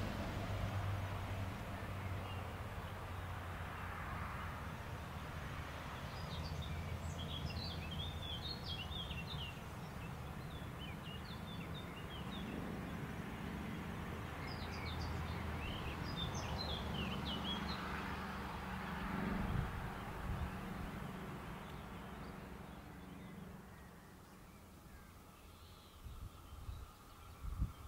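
Diesel engine of a GAF 100 R/V track maintenance vehicle running with a steady low hum as it drives away, slowly fading out. Songbirds chirp over it for a stretch in the middle.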